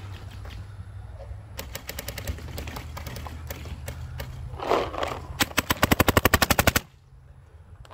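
Paintball markers firing in rapid strings of about ten shots a second: a fainter string about a second and a half in, then a loud, close string from about five and a half seconds that stops suddenly near seven seconds. A short rush of noise comes just before the loud string.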